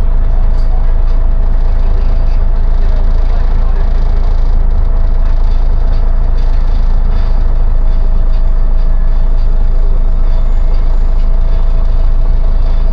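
City bus in motion, heard from inside: a steady low engine and road rumble with a constant whine above it.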